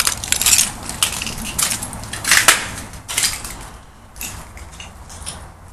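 Footsteps crunching over broken window glass, a dense run of sharp crunches and clinks that thins out and grows fainter after about three seconds.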